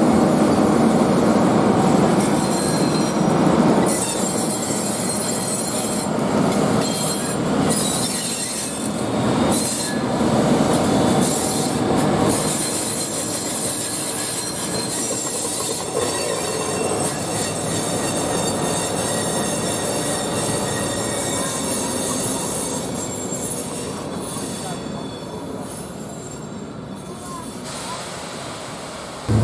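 Steel wheels of a slow-moving freight train squealing against the rails as covered steel-coil wagons and a DE 520 diesel locomotive creep into a siding. The rolling noise is loud at first, and steady high squeals run through the second half as it fades.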